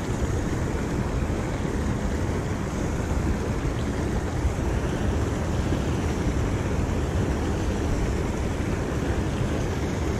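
Steady low rumbling of wind buffeting the camera microphone outdoors, with no distinct events.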